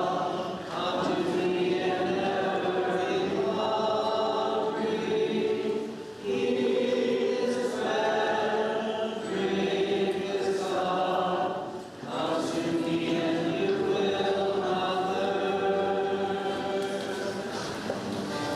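A group of voices singing a slow hymn together in long held phrases, with brief breaths between phrases about every six seconds.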